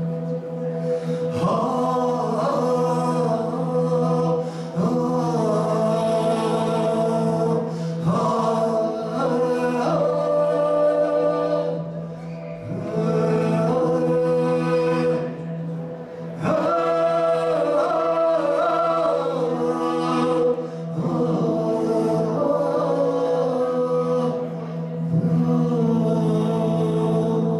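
Chant-like singing over a steady low drone, in sustained phrases a few seconds long with short breaks between them.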